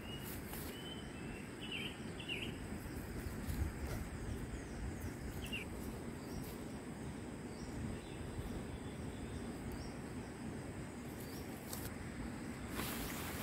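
Steady low hillside outdoor noise with a few short bird chirps early on and once more about five seconds in. Near the end a hissing rustle sets in, the nylon tent fly being handled.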